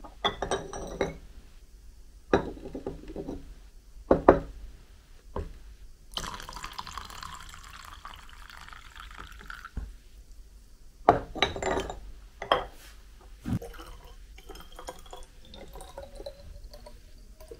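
Ceramic and glass vessels knocking and clinking as they are handled on a wooden table. Sake poured from a ceramic flask into a dried-squid sake flask for a few seconds, and near the end sake poured from a glass bottle into a ceramic jar, the pitch rising as the jar fills.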